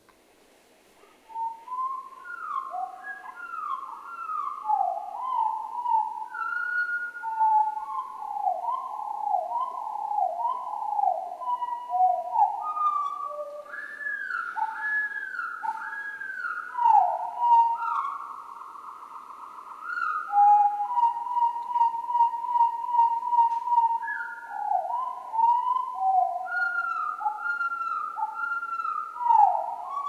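Eurasian wren song played back at one fifth of its normal speed, so it sounds much lower and slower. It is a long string of whistled notes, most sliding downward, with a short level trill in the middle. It starts about a second and a half in.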